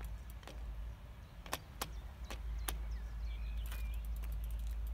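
A bicycle being wheeled and mounted, giving a few irregular sharp clicks and clacks over a steady low rumble, with a few faint high chirps near the end.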